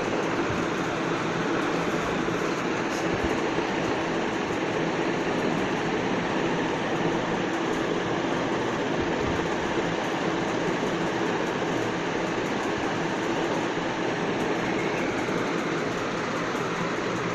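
Steady background rushing noise with a constant low hum from a running machine, unchanging throughout.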